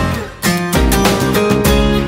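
Background music led by strummed guitar, with a brief dip in loudness just under half a second in.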